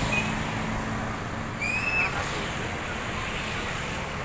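Steady background noise of a bus depot, with one short, high chirp about two seconds in that rises sharply and then holds briefly.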